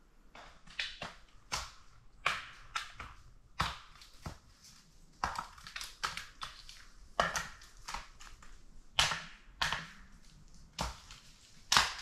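Footsteps crunching on dry ground and brush at an uneven walking pace, about one to two steps a second.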